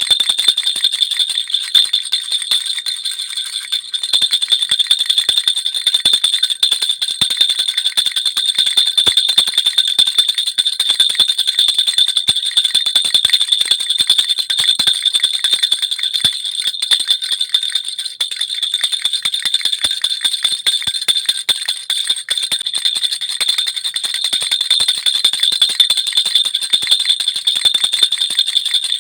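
Baby rattle (jhunjhuna) with small bells, shaken continuously: a fast, unbroken jingling with a steady high ringing.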